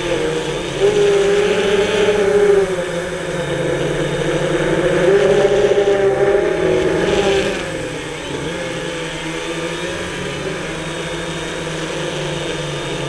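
Quadcopter drone's motors and propellers whining close to the onboard camera, the pitch rising and falling as the throttle changes. Louder during two surges in the first half, then steadier.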